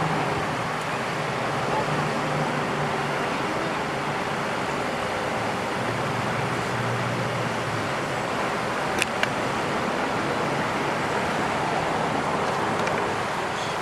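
Steady street traffic noise with a low engine hum, and two short clicks about nine seconds in.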